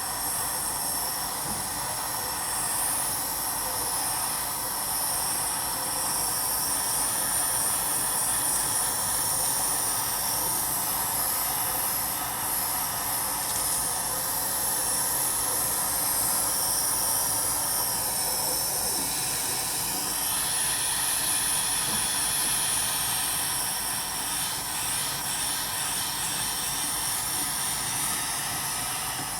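Jeweller's gas torch flame hissing steadily while heating a bezel joint to flow the solder.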